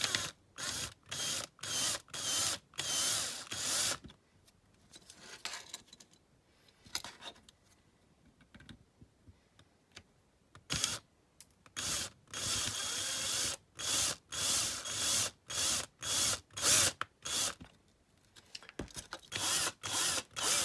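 Small electric drill run in many short bursts, drilling out the rivets that hold a die-cast toy car together, with a pause of about six seconds midway.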